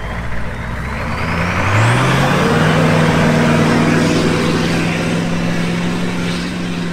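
Humvee's turbocharged 6.5-litre V8 diesel accelerating away across loose sand: the engine note climbs in pitch over the first two and a half seconds, then holds steady, with a thin high whistle rising early on and a rush of sand and dirt spraying from the tyres.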